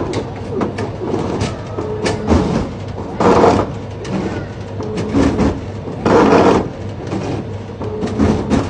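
Broken drinks vending machine's motorized delivery mechanism whirring and clicking, with three loud clatters about three seconds apart as its plastic delivery cup knocks about.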